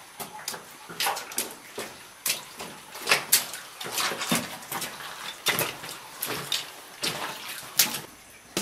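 Footsteps in water: a caver's boots splashing and scuffing irregularly through a wet, muddy cave floor.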